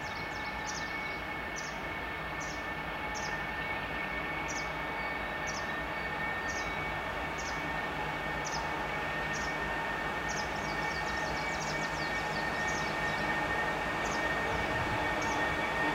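2TE116 twin-section diesel locomotive with its 16-cylinder 5D49 diesels running under power as it hauls a freight train, with a steady high whine, slowly growing louder as it approaches. A bird chirps over it about once a second.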